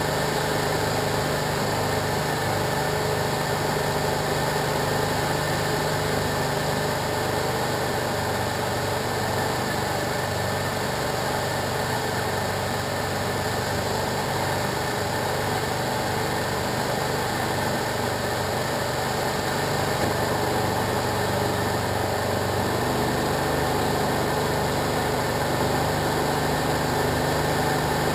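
SD-1 Minisport ultralight's engine and propeller running steadily in flight, heard inside the small cockpit with a constant rush of airflow. The engine note shifts slightly about three-quarters of the way through.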